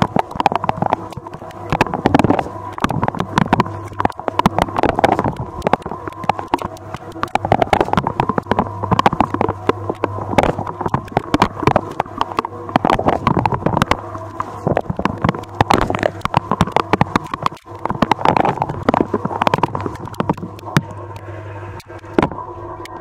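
Water from a Candy Duo 609 X dishwasher's spray arms splashing and pattering hard against the inside of the tub over the steady hum of the pump motor. Near the end the spraying stops and only a steady hum is left.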